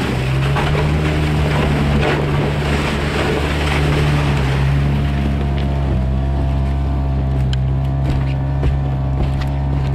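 Small Yamaha outboard motor running steadily while the aluminium hull of the boat grinds through slush and ice floes, with scattered sharp knocks of ice in the second half. The boat is stuck in the snowy slush ice and the motor is pushing against it.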